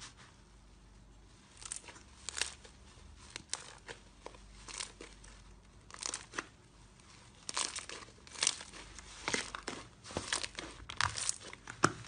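Slime being worked by hand, giving irregular crackles and sharp pops, several a second. It starts about a second and a half in and grows denser and louder toward the end.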